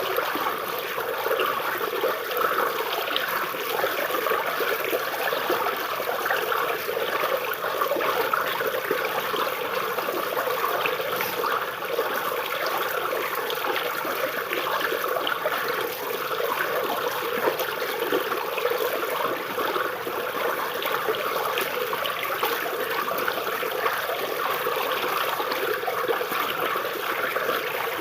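Small stream of water flowing and trickling over and under tree roots: a steady, even babble.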